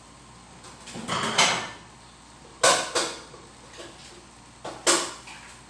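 Kitchen clatter: several sharp knocks and clanks of dishes and cabinetry being handled, the loudest about two and a half and five seconds in.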